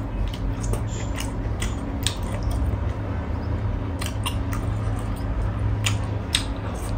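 A person chewing fried buffalo meat, close to the microphone, with short wet clicks and smacks of the mouth scattered throughout. A low steady hum runs underneath.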